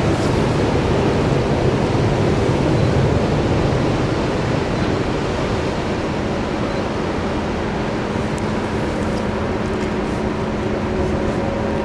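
Large ro-ro passenger ferry passing close by, with a steady rush of water along its hull mixed with wind. About halfway through, a steady low machinery hum from the ship rises above it.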